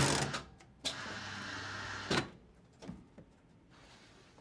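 Print-finishing machine trimming book pages to size: machine noise over a steady motor hum, a sharp clunk a little after two seconds in, then quieter mechanical clicks.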